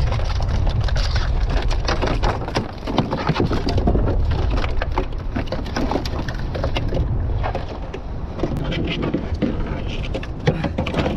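Wind rumbling on the microphone, with irregular clicks and scrapes from a blue swimmer crab and a drop net being handled on a kayak.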